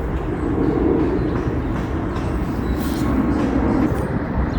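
Low rumble of a passing vehicle, swelling about half a second in and fading away near the end.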